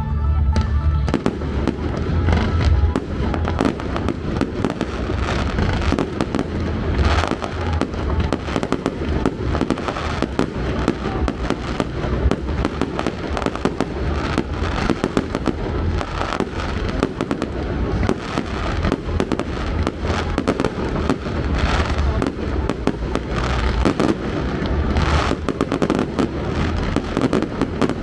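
Fireworks display going off in a dense, unbroken barrage: rapid bangs and deep thumps overlapping with crackling.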